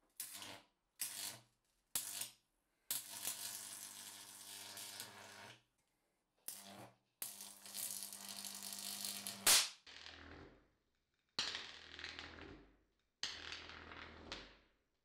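High-voltage arc from a neon sign transformer, struck and drawn out again and again with a hand-held wire: a series of buzzing, hissing bursts with sudden starts and a low mains hum under them. Two of the bursts last two to three seconds, and a sharp crack comes about nine and a half seconds in.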